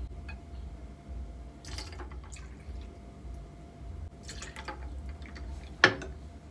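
Vodka trickling from a glass bottle into a small shot glass, with a few light clinks over a steady low hum. Near the end comes one sharp knock of glass.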